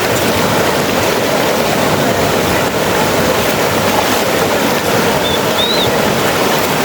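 River water rushing, a steady loud noise, with a brief high chirp about five seconds in.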